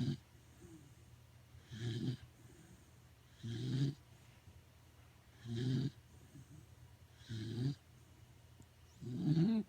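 Corgi snoring in its sleep: a rasping snore about every two seconds, five in a row after the tail of one at the very start.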